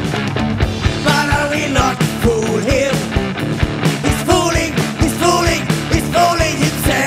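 Rock music: drums keep a steady beat under bass and electric guitar, with a wavering lead melody line on top.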